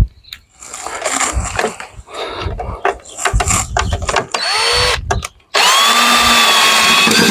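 Cordless drill/driver driving screws to tighten a wooden chair's joints: short bursts with brief rising whines, then from about five and a half seconds in a steady run whose whine rises in pitch and holds.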